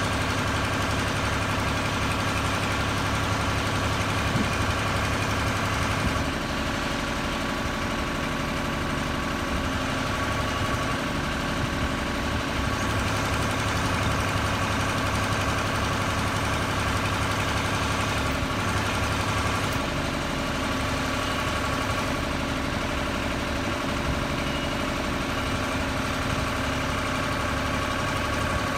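Articulating boom lift's engine running steadily, with an even low pulse and no change in speed.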